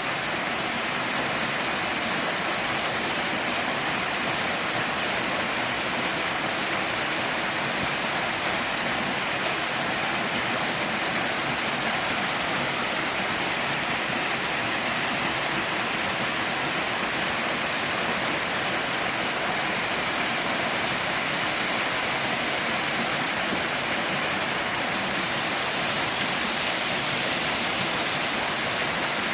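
Twin waterfall rushing steadily: an even, unbroken hiss of falling water.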